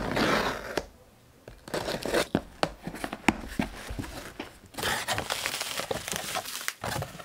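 A cardboard shipping box being unsealed and opened. First comes a short tearing burst as the packing tape is pulled away. Then the cardboard flaps and the bubble-wrap packing inside rustle and crinkle with many small sharp crackles.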